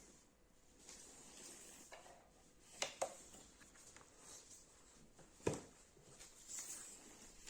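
Near-quiet room with a few faint, sharp clicks or knocks: two close together about three seconds in, and a louder one past the halfway mark.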